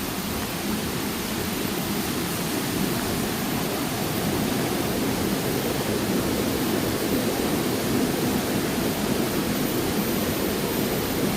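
Steady rush of flowing water, growing slightly louder over the first few seconds.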